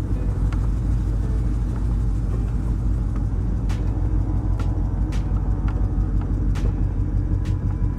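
Car engine running steadily with a low rumble, with several sharp clicks scattered through the second half.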